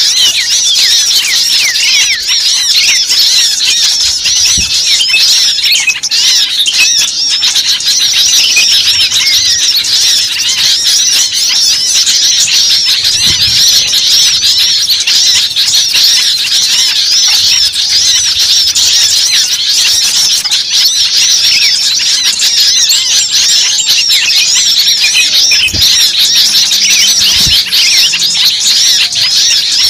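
A flock of many small birds chirping at once: a dense, continuous chatter of high, overlapping chirps.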